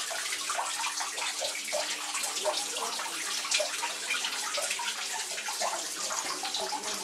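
Water running and splashing steadily, a continuous trickle-and-splash, with a faint steady hum underneath.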